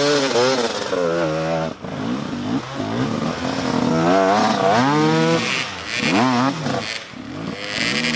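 Enduro dirt bike engine revving hard under load on a steep climb, the revs rising and falling again and again, with one long rise about four seconds in.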